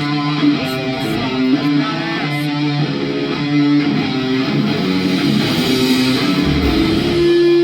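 Amplified electric guitar playing a melodic riff of single notes, ending on one held note that cuts off suddenly.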